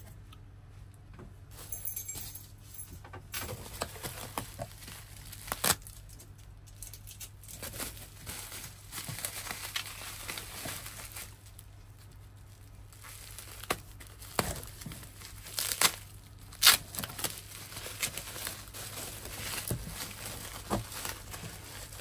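Plastic bubble wrap crinkling and rustling as hands handle and pull it apart, starting about three seconds in, with a few sharp clicks and knocks scattered through it.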